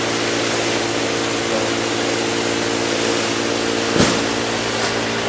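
Agarwood processing machinery in a factory running with a steady hum and whir over a hiss, with a single knock about four seconds in.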